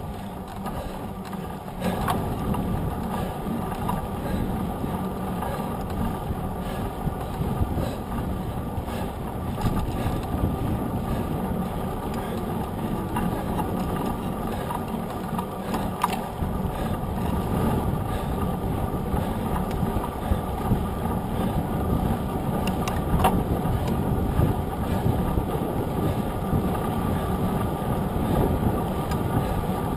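Mountain bike rolling fast on asphalt: a steady rush of knobby-tyre road noise and wind on the bike-mounted microphone, with a faint steady hum and scattered clicks and rattles from the bike.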